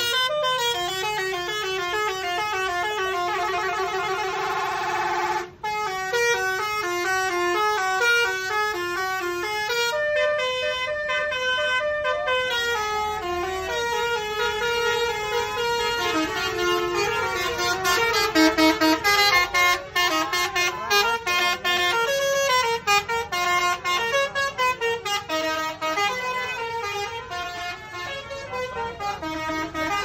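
Indonesian bus 'basuri' telolet musical horns playing fast stepping melodies of sounded notes. They break off briefly about five seconds in, then carry on with shorter, choppier notes that come in rapid pulses in the second half.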